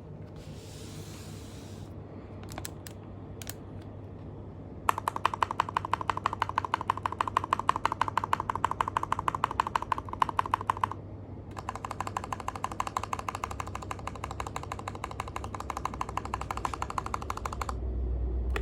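TM680 mechanical keyboard with Gateron Milky Black linear switches lubed with Krytox 205g0, ABS OEM keycaps and case and plate foam, being typed on. A few scattered keystrokes come first, then two long, rapid flurries of keystrokes with a short break between them.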